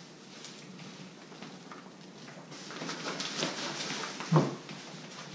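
Rustling and light clicks as the fabric canopy of a pet stroller is pulled forward over its frame, with one louder thump a little over four seconds in.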